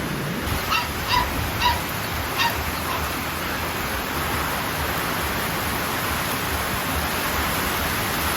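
A small animal gives five or six short, high-pitched calls in the first three seconds over a steady hiss.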